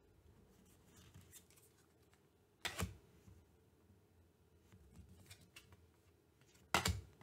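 Tarot cards being laid one at a time onto a pile on a table: two short, soft slaps about four seconds apart, with faint handling rustle of the cards between.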